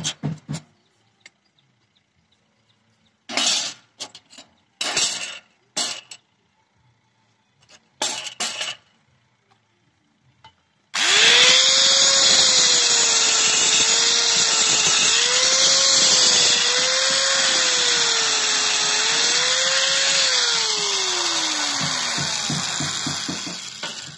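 A handheld angle grinder cuts into a wooden knife-handle blank for about ten seconds, starting suddenly partway through. Its motor pitch dips and recovers as the disc bites into the wood, then winds down as it is switched off. Earlier there are a few short scraping knocks.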